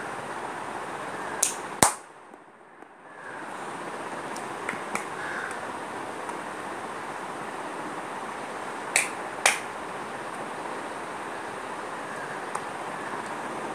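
Steady background hiss, broken by two pairs of sharp clicks: one pair about a second and a half in, the other about nine seconds in. Right after the first pair the hiss drops out for about a second.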